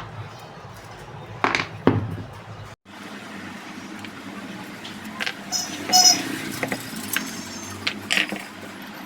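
Small metal parts and hand tools clinking and knocking during work on a table fan motor, with a few ringing metallic taps about six seconds in, over a steady low hum.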